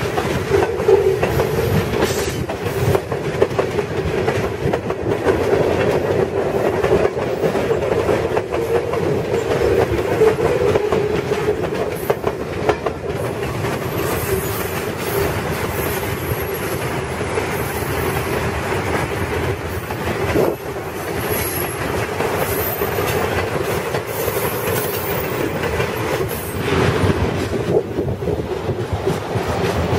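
Freight cars, mostly tank cars, rolling past on steel wheels: a steady clickety-clack over the rail joints with a continuous wheel squeal, strongest in the first half.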